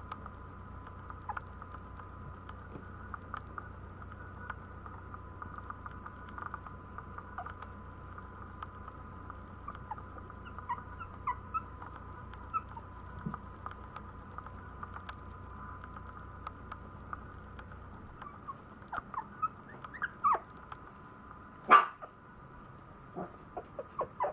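Very young Maltese puppy giving small squeaks and whimpers, its claws ticking on the tile floor as it crawls about, over a steady hum. One louder, sharp sound near the end.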